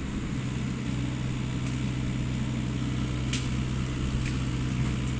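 Steady low engine drone, with a few faint sharp crackles from a wood campfire.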